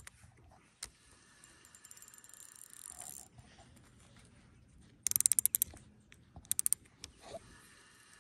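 Spinning reel clicking while a hooked trout is being played: a fast run of light ticks, then two short bursts of louder rapid clicks.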